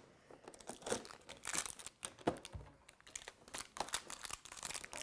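A small plastic mystery bag crinkling and tearing as it is opened by hand, in many irregular crackles and rustles.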